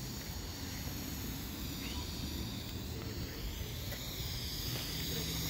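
Brite Star 6 Minute Smoke firework burning with a steady hiss over a constant low rumble. A faint low hum comes in near the end.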